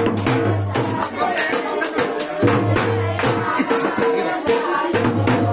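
Loud dance music with a steady percussion beat.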